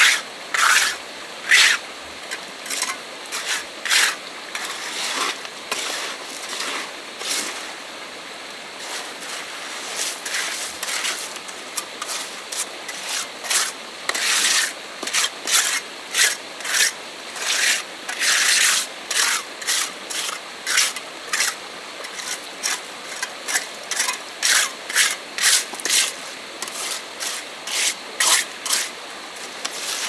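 Repeated rasping strokes of a hand tool scraping or rubbing, about one to two a second and uneven in pace, fainter for a few seconds in the middle.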